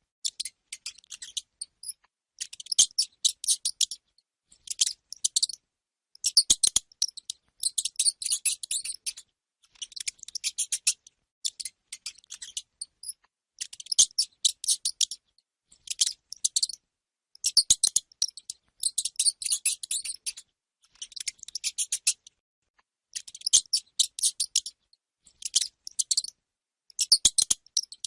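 Hamster squeaking in rapid, high-pitched chatters, coming in bursts of one to two seconds with short pauses between them, along with a few sharp clicks.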